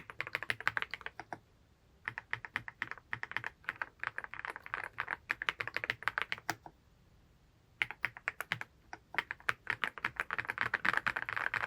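Typing on a Yunzii C75 mechanical keyboard with candy switches: fast runs of keystroke clicks, broken by two short pauses.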